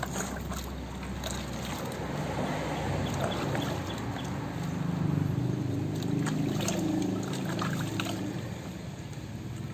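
Bath water sloshing and splashing in a plastic tub as a puppy is washed by hand, with scattered small splashes.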